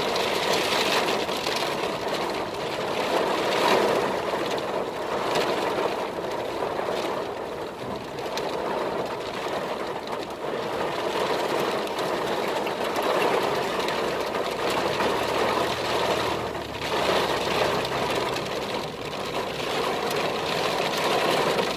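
Heavy rain hitting the roof and windshield of a car, heard from inside the cabin, with the car's engine running underneath; the rain swells and eases a little.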